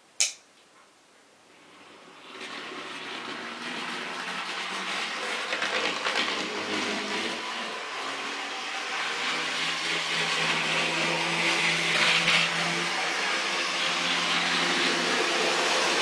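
A sharp click, then a Mehano HO-scale Thalys model power car starts off round the track. Its electric motor whirrs and its wheels run on the rails, the sound growing louder over several seconds as it picks up speed.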